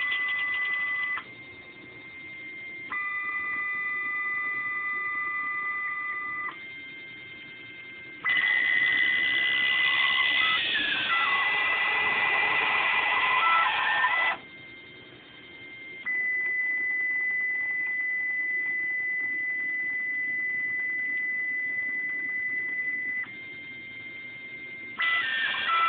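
Stepper motors of a Bluumax CNC router kit whining as the gantry moves a pen through a plot: steady tones that jump to new pitches with each move and drop back quieter between moves. Partway through, the pitch slides and wavers as the machine draws an arc.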